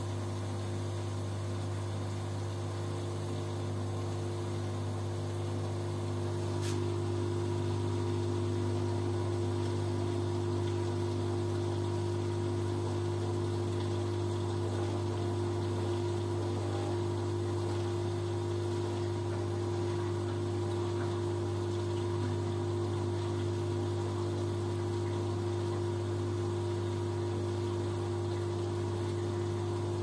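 LG Direct Drive front-loading washing machine running with a steady electric hum. A click comes about seven seconds in, after which the hum gets slightly louder and stays even.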